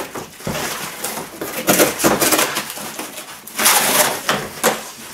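Corrugated cardboard being sawn with the serrated edge of an Extrema Ratio Task C knife and torn apart, making rough rasping and ripping noises. The loudest rips come in bursts about two and about four seconds in.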